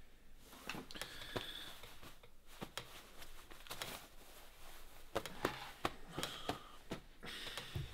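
Irregular sharp clicks and knocks with rustling in a small room, from a man typing on a laptop keyboard and then getting up from a wooden chair. A few short squeaks come through, about a second in and again near the end.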